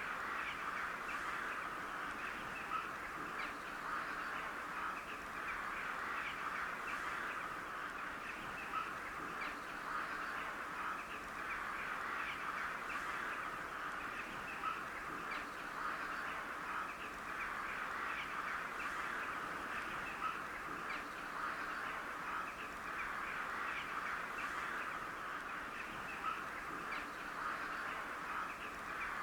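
A large flock of crows calling in a dense, continuous chorus of overlapping caws, with a few louder single calls standing out every couple of seconds.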